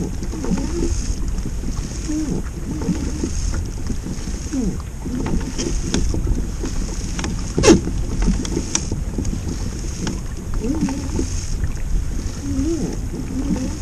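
Wind buffeting the microphone with a steady low rumble and water sloshing, and one sharp knock a little over halfway through.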